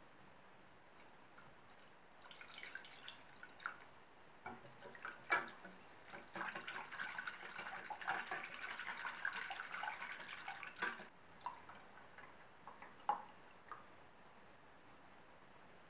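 Milk poured into a stainless steel saucepan, pattering and splashing as it lands on egg yolk and cornflour. It builds from scattered drips to a steady splashing, then stops about eleven seconds in, leaving a few last drips.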